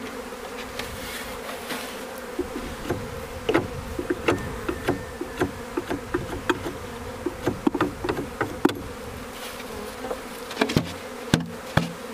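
Honeybees buzzing in numbers around an opened hive, a steady hum, with scattered light knocks and taps.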